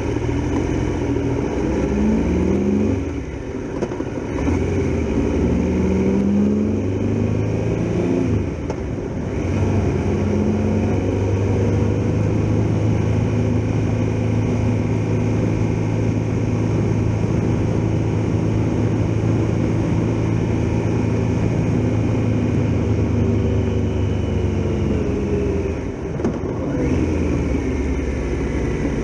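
Triumph Tiger Explorer XRx motorcycle's three-cylinder engine under way. Revs rise and fall several times in the first ten seconds or so, then hold steady at cruising speed, with a brief dip and pick-up near the end.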